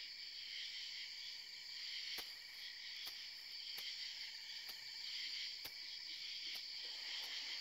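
Crickets chirping in a steady night chorus, with faint ticks about once a second.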